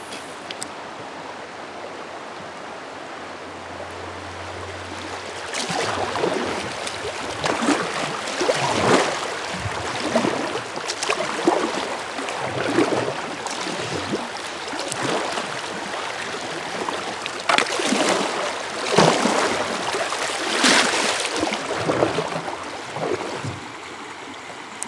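Kayak paddle strokes splashing in a rocky river, a swell of splashing about every second and a half from several seconds in until near the end, over the steady rush of the current. Before the strokes begin there is only the rushing river.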